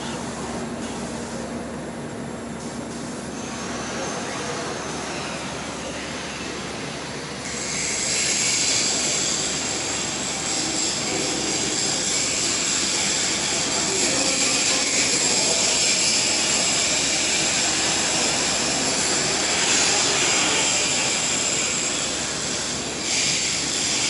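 Robotic TIG (argon arc) welding torch: the arc strikes about seven seconds in and burns as a steady hiss, breaking off briefly near the end and striking again, over a low factory hum.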